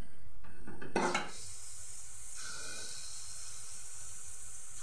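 Palm-fruit fritter batter deep-frying in hot oil in a wok, with a steady sizzling hiss. A brief clatter comes about a second in.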